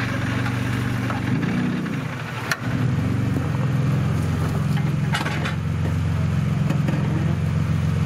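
Off-road competition 4x4's engine running under load as it crawls up a rocky gully on a winch line, wavering at first, then a sharp click about two and a half seconds in, after which it runs louder and steadier.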